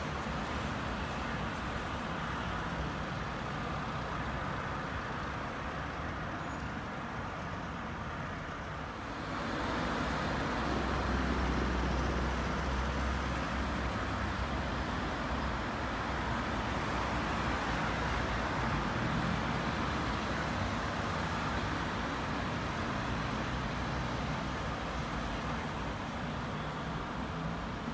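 City road traffic: a steady wash of passing-car noise with a low rumble, growing louder about a third of the way in as heavier traffic or a vehicle comes close.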